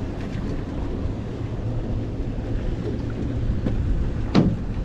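Wind buffeting the microphone over a low steady hum aboard a small fishing boat at sea, with one short sharp sound near the end.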